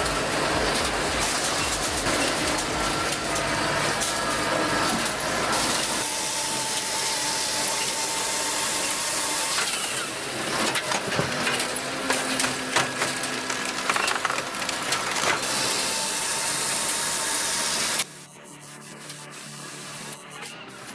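Heavy wood-processing machinery running, its engine going under load while wood is ground and crushed, with a dense rough noise. The sound changes abruptly a few times, and drops sharply to a quieter machine sound near the end.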